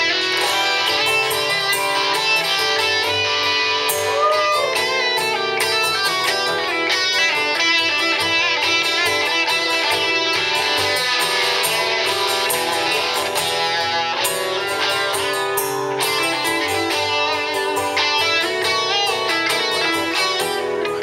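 Live instrumental duet of a strummed steel-string acoustic guitar and an electric guitar picking a lead line over it. A string bend is heard about four seconds in.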